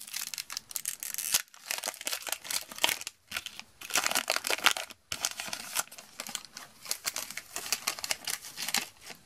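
Foil wrapper of a Magic: The Gathering booster pack being torn open and crinkled as the cards are slid out, in a run of crackly rustles with a few short pauses.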